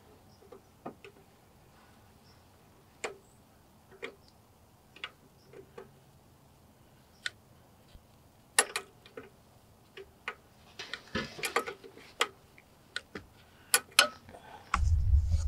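Metal wrench clicking and ticking as it works the carburetor mounting nuts loose on a snowblower engine: scattered single clicks, a quick flurry of them about eleven seconds in. A low rumble comes in near the end.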